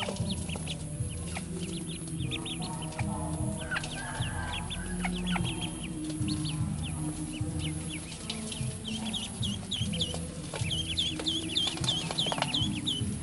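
Ducklings peeping: many short high-pitched peeps overlapping, thickest in the last few seconds.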